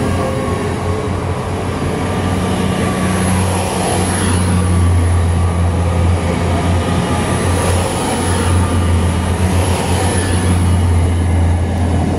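Great Western Railway Intercity Express Train, a Hitachi bi-mode set on its underfloor diesel engines, moving past along the platform: a steady low engine drone over wheel and rail noise, a little louder from about four seconds in.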